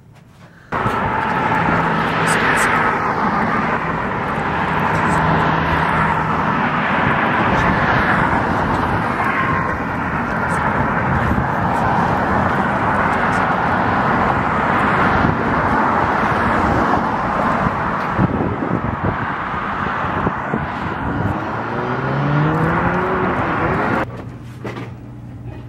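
Loud, steady rushing noise of vehicle traffic. It cuts in suddenly about a second in and drops away near the end, just after a short rising tone.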